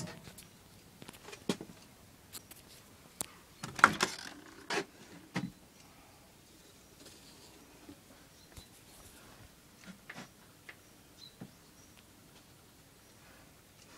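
Scattered clicks and knocks from a Zanussi tumble dryer's door being opened and handled once the drum has stopped, the loudest cluster about four seconds in, over a quiet background.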